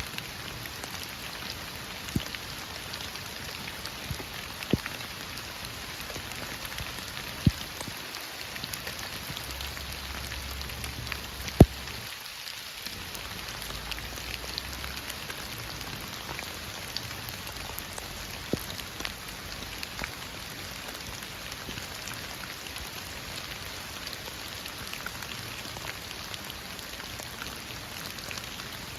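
Heavy rain falling steadily, with several sharper, louder drops striking close by.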